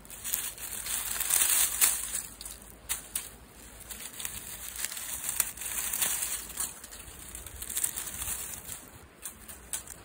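Dry fallen leaves and twigs crackling and crunching under a hand rummaging through leaf litter to pick young mugwort. The crackles are irregular and busiest in the first couple of seconds.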